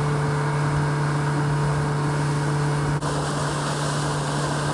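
Outboard motor running steadily with the boat underway, one steady engine note over the rush of water and wind along the hull. A short break about three seconds in, after which the same engine sound carries on.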